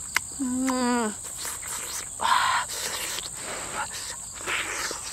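A woman eating roasted fish: a short, falling 'mmm' of enjoyment about half a second in, then several wet smacking and chewing noises. A steady high-pitched drone of crickets runs underneath.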